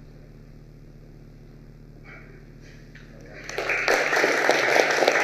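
A quiet stretch with a faint low hum, then audience applause breaks out about three and a half seconds in and keeps going.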